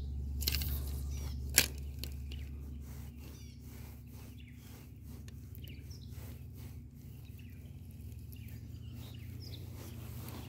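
A fishing rod cast: a swish of the rod and line about half a second in, then one sharp click, followed by a scatter of faint ticks. A steady low hum runs underneath, with faint bird chirps.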